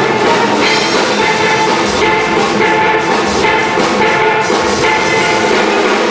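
A steel band playing live: steel pans carrying the melody and chords over a steady drum beat.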